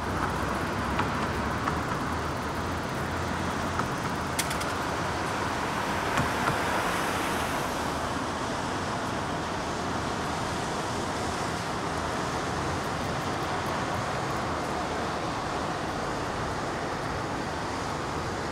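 Steady road traffic noise, an even hum of passing vehicles, with a few brief clicks in the first several seconds.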